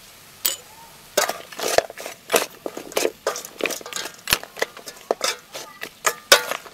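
A metal ladle stirring chunks of meat in a large metal cooking pot, scraping and clanking against the pot again and again at an irregular pace. A single clink comes about half a second in, and the steady stirring starts about a second in.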